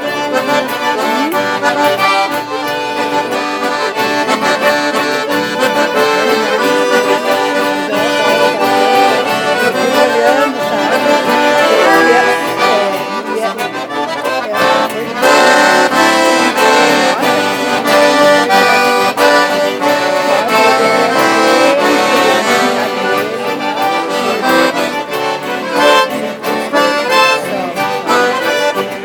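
Accordion music in the gaúcho missioneiro style: held chords and melody lines running without a break, with many short rhythmic accents.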